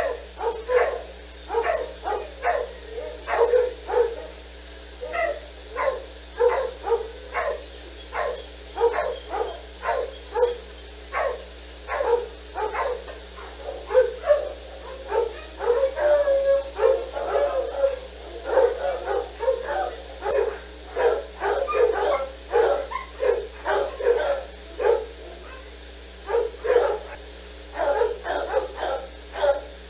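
A dog barking over and over in a steady run of short barks, roughly one to two a second, pausing briefly a few seconds before the end.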